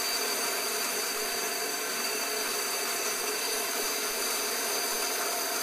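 Inland DB-100 band saw running steadily with a diamond blade grinding through a glass bottle under light hand pressure, its blade kept wet by a water drip. A steady whir and hiss with a thin high tone over it, unchanging throughout.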